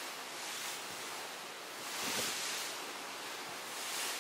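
Sea water rushing and splashing along the hull of a large ferry under way, surging louder twice, with wind over the deck.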